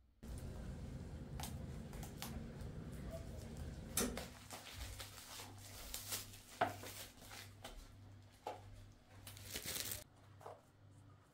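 Paper notepad and its wrapping being handled: rustling and crinkling with a few sharp clicks and taps, loudest a little after the middle. Underneath, from about halfway, a low hum pulses about twice a second.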